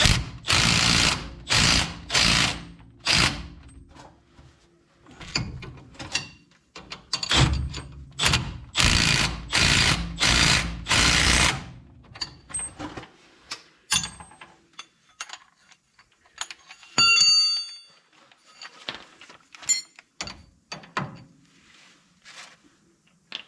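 Impact ratchet running bolts in, in two runs of short bursts, the first at the start and the second about seven seconds in. Lighter metal clicks follow, with a short ringing clink of metal about two-thirds of the way through.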